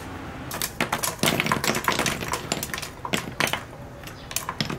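Lumps of burning charcoal clinking and crackling as they are worked and tipped from a metal pot into the grill with metal tongs: a quick, irregular run of sharp clicks that thins out near the end.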